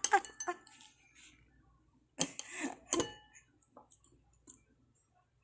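A metal fork scraping and tapping in a ceramic bowl of fish paste, with two louder short knocks, one just after two seconds and a sharp one about three seconds in.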